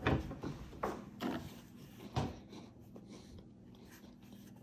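Stainless steel pedal-operated trash can being used: its lid knocks and clunks four times over the first two and a half seconds, the first and last the strongest.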